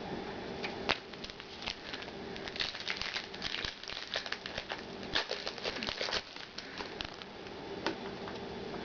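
Trading-card packaging crinkling and cards being handled: a run of quick crackly rustles and clicks, busiest in the middle, over a faint steady hum.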